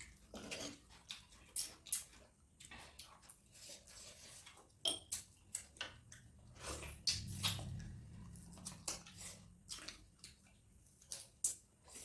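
Quiet eating sounds: scattered light clicks and clinks of food being taken from a plate and chewed.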